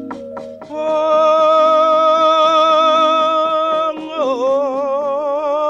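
Javanese gamelan music in a wayang kulit performance: a singer holds one long note, dropping lower about four seconds in and wavering with vibrato, over ringing struck metallophone tones and a light regular beat.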